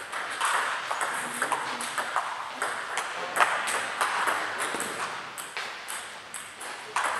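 Table tennis rally: the ball clicks sharply back and forth off the bats and the table, the loudest hit about three and a half seconds in, with fainter ball clicks from other tables in the hall.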